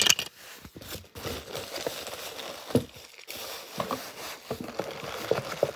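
Handling noise of toy train engines with plastic wheels: scattered light clicks and knocks as they are picked up and set down, over a soft rustle of cloth.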